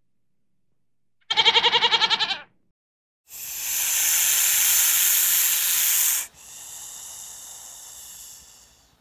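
A single trembling bleat lasting about a second. Then, after a short gap, a loud hiss of about three seconds that drops to a quieter, fading hiss for a couple of seconds more.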